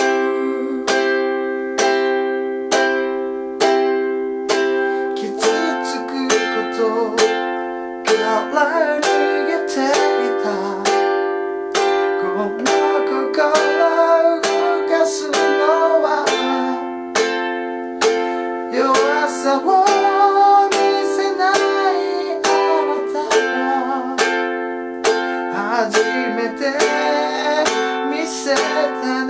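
A ukulele strummed in steady, evenly spaced chords while a man sings a slow ballad over it. The first few seconds are ukulele alone before the voice comes in.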